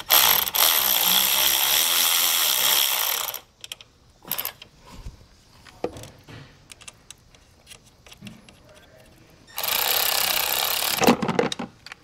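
Milwaukee cordless ratchet spinning a socket on a car battery terminal nut. A run of about three seconds loosens it, light clicks and taps of handling follow, and a second run of about a second and a half near the end tightens it back down.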